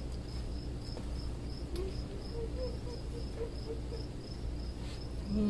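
Crickets chirping in a steady, regular rhythm, about three high chirps a second, over a low steady hum.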